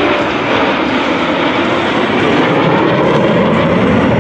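Jet noise from a four-ship diamond formation of F-16 Fighting Falcons passing overhead: a loud, steady rushing sound that grows a little fuller toward the end.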